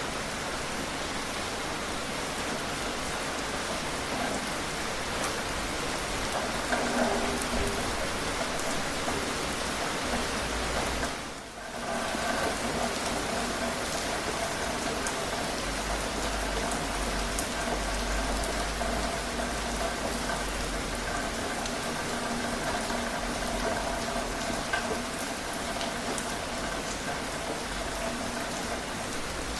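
Steady rain falling, an even dense patter that dips briefly about eleven seconds in.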